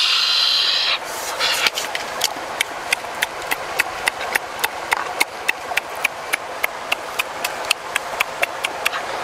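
Steady rushing of running water, with a loud high hiss in the first second. From about a second in, a regular run of sharp clicks, about three a second, sits over the water.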